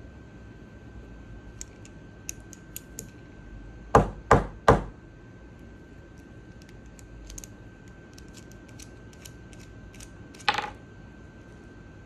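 Tactical pen handled at a desk: three hard knocks in quick succession about four seconds in, light scattered clicks before and after, and one louder click near the end. A faint steady high tone runs underneath.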